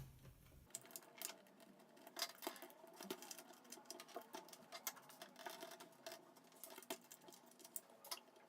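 Faint, irregular light clicks and scrapes of small plastic and metal parts being handled as the steering servo is worked out of a 1/12 scale RC truck's chassis.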